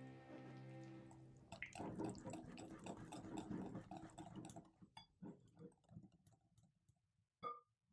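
Faint food-preparation sounds. A music chord dies away, then there are a few seconds of wet, crackly mixing noise, followed by scattered light taps and one sharp clink near the end.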